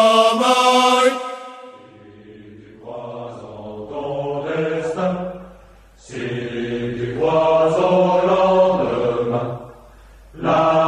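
Music from a song soundtrack with long held, chant-like notes: a high held note breaks off about a second in, then lower notes follow in phrases with brief pauses.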